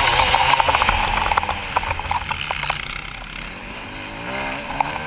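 Motocross bike engine on throttle, then eased off going into a turn, and revving back up with rising pitch near the end. There are scattered ticks and rattles while the bike is under power.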